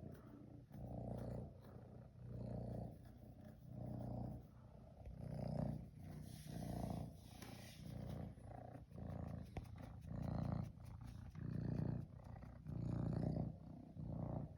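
Domestic cat purring close by, the purr swelling and easing in a steady rhythm with each breath, about once every second and a half.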